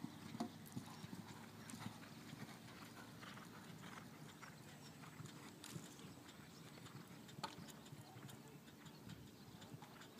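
Faint hoofbeats of a horse cantering and jumping on a sand arena, heard as scattered soft thuds and clicks.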